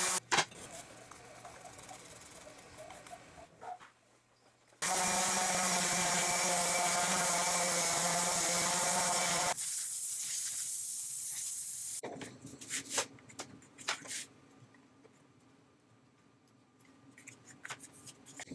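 A DeWalt random orbital sander running on birch plywood, a steady sanding noise over the pitched hum of its motor, loudest through the middle of the stretch. It cuts to a steady hiss for about two seconds, then to light taps and handling sounds.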